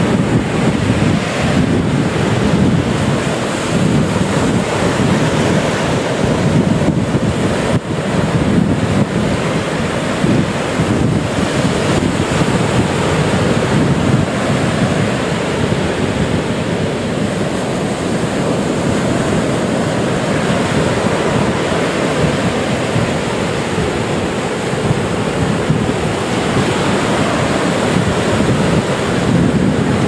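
Sea surf: small waves breaking and washing up a sandy beach in a steady, continuous rush that swells and eases gently, with wind rumbling on the microphone.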